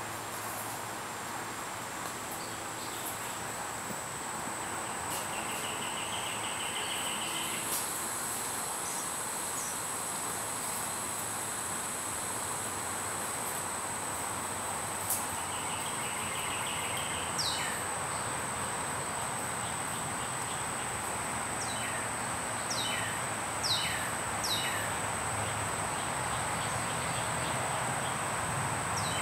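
Summer insect chorus with a steady high-pitched drone, joined in the second half by a bird's short downward-sweeping chirps repeated several times.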